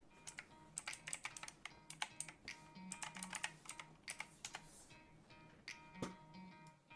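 Typing on a computer keyboard: a quick run of keystrokes for about four and a half seconds, then a few single clicks. Quiet background music plays underneath.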